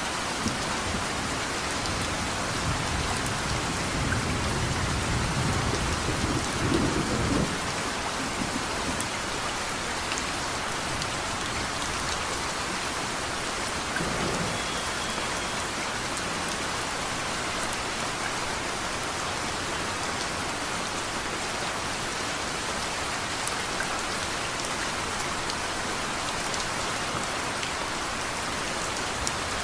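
Steady rain hissing. A low roll of thunder builds in the first few seconds and peaks about seven seconds in, and a fainter rumble follows at about fourteen seconds.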